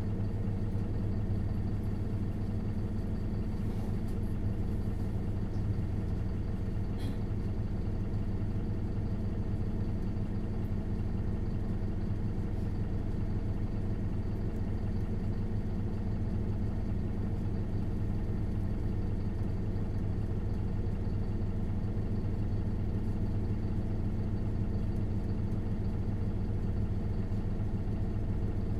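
Isuzu Erga LV290N1 city bus's four-cylinder diesel engine idling steadily at one unchanging pitch, heard from inside the bus.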